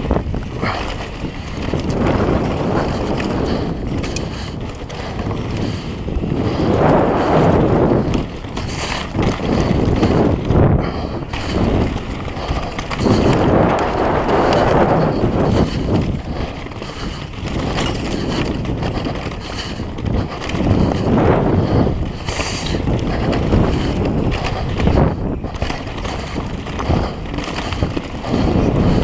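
Downhill mountain bike descending a rough dirt trail at speed: wind rushing over the camera microphone, tyres rumbling over rocks and roots, and a steady run of knocks and rattles from the bike. The rush swells and eases every few seconds.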